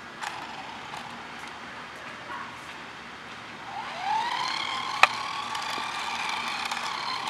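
Small electric motor of a Lightning McQueen remote-control toy car whining up in pitch about four seconds in and then running at a steady high whine. A single sharp click about a second after it starts.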